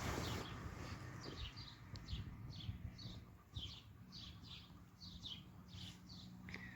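A songbird calling: a rapid series of short, high chirps, each sliding downward in pitch, repeated about two to three times a second from about a second in, faint.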